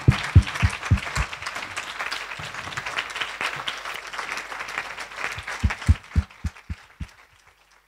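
Audience applauding, with heavy thumps from a few close claps mixed in; the applause thins out and dies away near the end.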